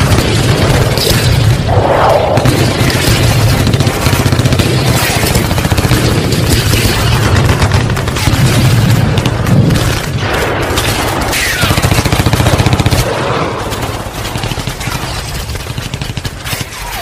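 Battle sound effects played loud: rapid gunfire and machine-gun fire with booming explosions. The heavy rumble drops away and the level falls about thirteen seconds in.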